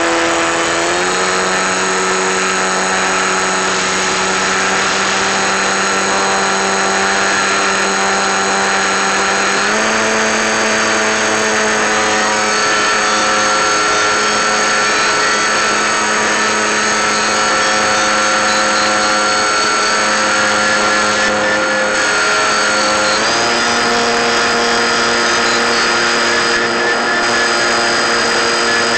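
Electric motor and propeller of an FPV model plane, a steady whine heard from on board, stepping up in pitch about a second in, again about ten seconds in and once more near 23 seconds as the throttle is raised.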